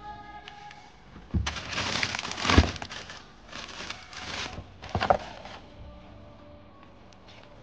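Plastic bags rustling and crinkling as items in a cabinet are handled and moved, with a few sharp knocks, the loudest about two and a half seconds in and another about five seconds in.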